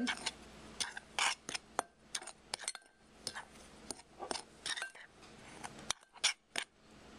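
A utensil stirring dry flour mix in a bowl, clinking and scraping against the bowl's sides in quick, irregular strokes.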